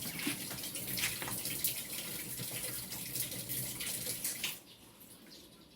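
Water pouring steadily into a washing machine tub, as it is filled to test a repaired drain that should no longer leak. The flow cuts off about four and a half seconds in.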